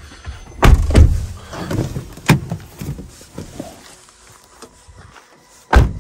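Car door knocks and thuds as someone climbs out of the car, with shuffling between, several sharp knocks in the first half and a loud thump near the end.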